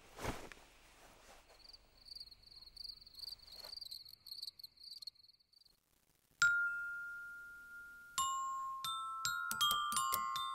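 Sparse bell-like chime notes, struck one at a time and left ringing, starting about six seconds in and coming closer together near the end. Before them there is a short breathy whoosh, then a faint, wavering high whistle lasting about four seconds.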